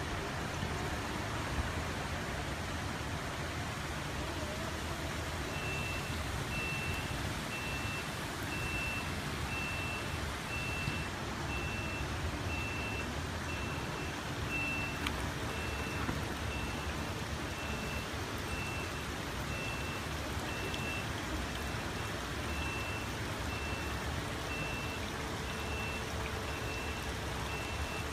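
A regular high-pitched electronic beep that starts a few seconds in and repeats steadily, over a steady rushing noise. It is the warning signal of the canal lock's gates as they swing open, with a faint steady hum joining about halfway.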